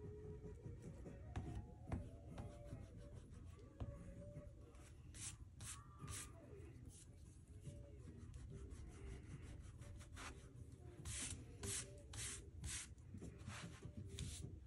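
Quiet, scratchy rubbing strokes on watercolour paper, sparse at first, then in quick runs of about three strokes a second that grow stronger in the second half.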